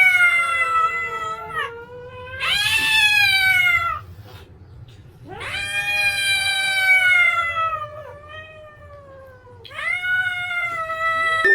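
A cat yowling in four long, drawn-out meows, each sliding down in pitch, with short pauses between them.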